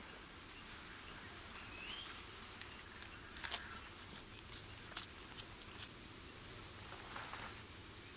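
Zanzibar red colobus monkey crunching a lump of charcoal: a run of sharp, irregular crunches from about three to six seconds in.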